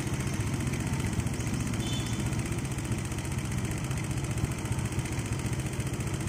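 Small engine running steadily at idle, with an even rapid pulse and no change in speed.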